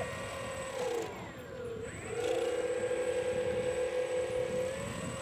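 Electric motors and propellers of a 12-foot-span model DH114 Heron whining steadily as it runs on the grass. The pitch dips about a second in and comes back up about two seconds in, as the throttle is eased and opened again.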